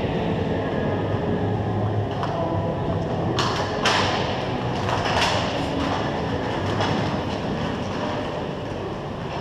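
Hockey play on a rink: a steady rumble of skating with several sharp clacks and scrapes from sticks and puck, the loudest about three to four seconds in.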